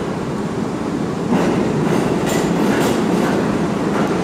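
R32 subway train running through the station without stopping: a steady rumble of the cars with the wheels clicking over the rail joints, growing louder a little over a second in as the cars come alongside.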